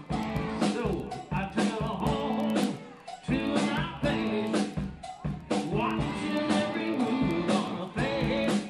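Band playing live, guitar over a steady drum beat of about two hits a second.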